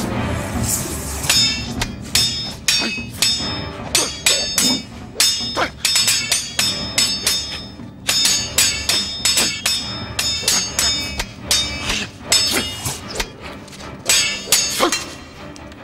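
Steel sword and spear clashing in a rapid exchange of blows: dozens of sharp metallic clangs, each ringing briefly, coming in quick volleys with short gaps between them.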